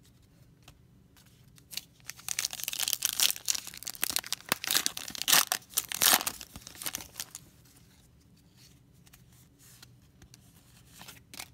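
Foil wrapper of a football trading-card pack being torn open and crumpled by hand: a dense crackle from about two seconds in to about seven seconds in, loudest near the middle, then only faint handling of the cards with a small click near the end.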